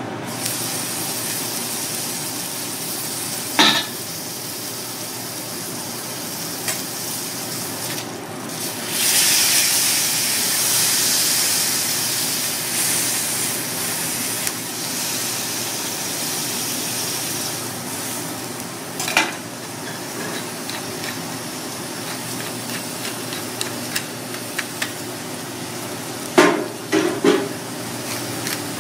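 Thick Kurobuta pork steak sizzling on a hot teppanyaki griddle. The sizzle swells louder for a few seconds about a third of the way in. A few sharp clinks and scrapes of a steel spatula and fork against the plate come in, twice near the end.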